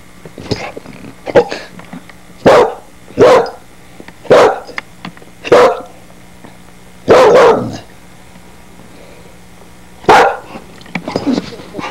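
Soft-coated wheaten terrier puppy barking: a string of short, loud barks about a second apart, one longer bark about seven seconds in, then a pause before another bark about ten seconds in.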